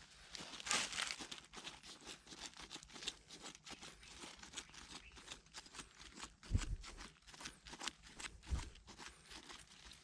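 Digging at a tarantula burrow with a stick: dry soil scraping and crumbling and dead leaves crackling in quick irregular bits, with two dull thumps in the second half.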